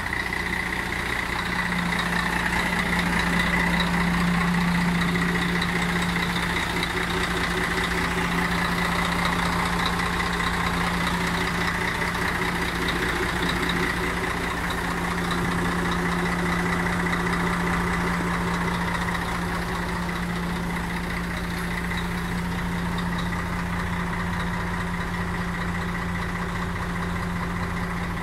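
Volvo FH12 tipper truck's 12-litre inline-six diesel engine idling steadily, with a steady low hum that swells slightly twice.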